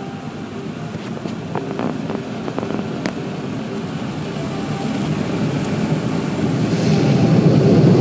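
Car wash air-dryer blowers, heard from inside the car, growing steadily louder as the car moves into their airflow. A few light knocks come around two seconds in.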